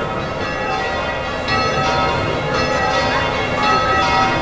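Church bells ringing: overlapping bell tones, with fresh strikes about once a second, over a steady low rumble.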